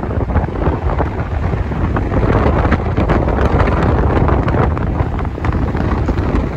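Wind buffeting the microphone: a loud, uneven rumble with gusts.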